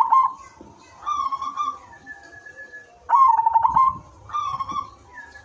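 Zebra dove (perkutut) singing its cooing song. Each phrase is a quick run of short notes followed by a longer warbling coo, repeated about three seconds apart.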